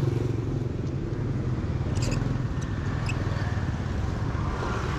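Motorbike engine running steadily, a low hum with road and traffic noise, with a few faint clicks around the middle.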